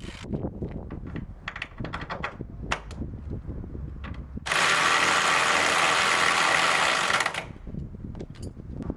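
Metal tools and parts clinking and knocking, then a power tool runs steadily for about three seconds and stops, followed by more clinks.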